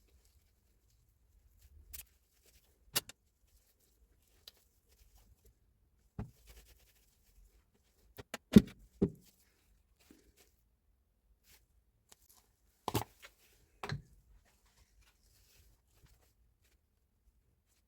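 Sparse, irregular clicks and knocks with quiet between them; the loudest is a pair of knocks about halfway through.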